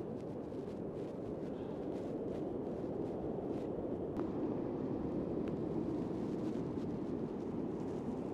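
Steady rushing of wind and breaking surf, with a few faint clicks.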